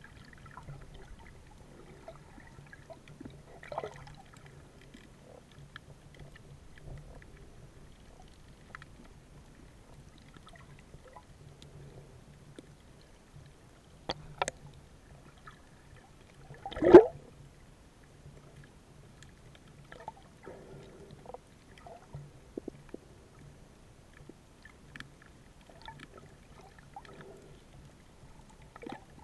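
Muffled underwater sound picked up by a submerged camera: a faint steady low hum with scattered small clicks. A sharp click comes about fourteen seconds in, and a loud short knock about three seconds after it.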